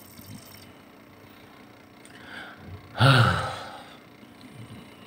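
A faint breath in, then a loud sigh about three seconds in, the voice dropping in pitch as it trails off, over a faint steady hum.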